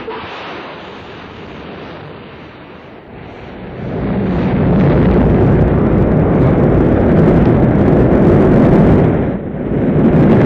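Rocket engines roaring at launch. The roar starts suddenly, then swells to a much louder, deep rumble about four seconds in as the rocket lifts off, with a brief dip near the end.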